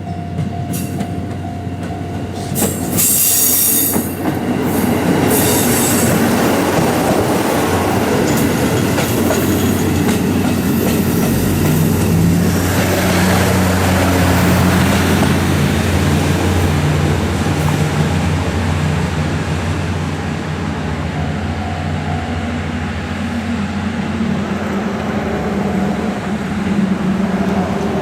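Kiya 95 diesel track-inspection train running close by on the rails. Brief high wheel squeals come about three and five seconds in, then a steady rumble with the diesel engine's drone, whose note steps up around the middle.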